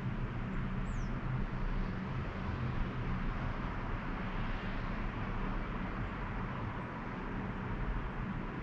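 Steady outdoor ambience: a low rumble under an even hiss, with one brief high falling chirp about a second in.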